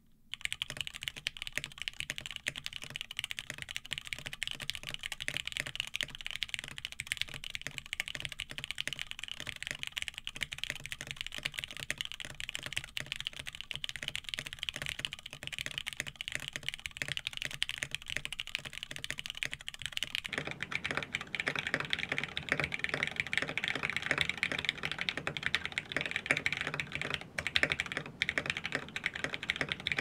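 Continuous fast typing on a Geonworks Frog TKL mechanical keyboard with lubed Cherry MX Black Hyperglide linear switches, an aluminium plate and XMI Cadet keycaps: a dense, unbroken stream of key strokes. About twenty seconds in the sound turns fuller and deeper as the recording switches from an RE20 dynamic microphone to the camera's microphone.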